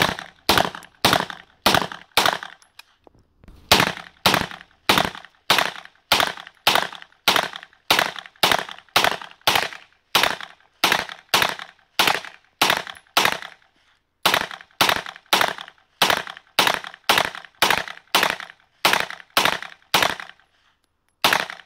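Semi-automatic 9mm carbine (Chiappa PAK9) firing from a 50-round drum, single shots at a steady pace of about two a second, each crack trailed by a short echo. The string breaks off for a moment three times.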